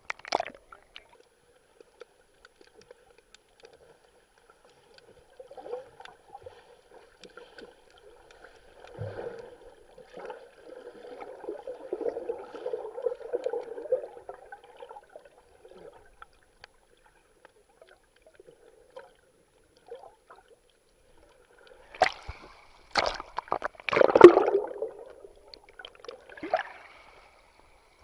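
Sea water sloshing and gurgling around a swimmer's hand-held camera, with muffled bubbling in the middle while the camera is underwater. Several loud splashes near the end.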